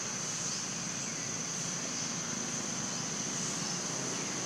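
Outdoor daytime ambience: a steady high-pitched insect drone over a low background rumble, with a few faint chirps.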